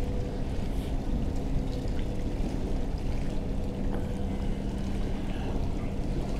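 Water lapping and splashing against a small boat's hull, a steady low wash with a faint continuous hum underneath.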